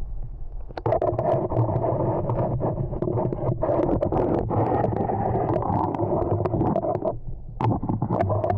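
Mountain stream water rushing and gurgling, with wind rumbling on the microphone.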